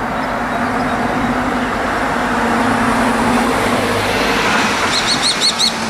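Road traffic: a vehicle passes with a steady hum and road noise that swells and then fades. Near the end a small bird gives five quick high chirps.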